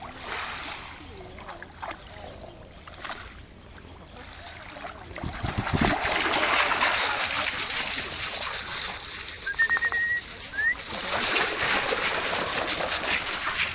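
Two French bulldogs splashing through shallow water at a pebbly shore. It is lighter paddling at first, then loud, continuous splashing from about five seconds in. A short high whistle sounds briefly around the middle.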